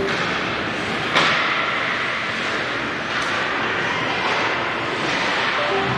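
Ice hockey game play on a rink: a steady hiss of skates scraping the ice, with one sharp knock about a second in and a fainter one about three seconds in.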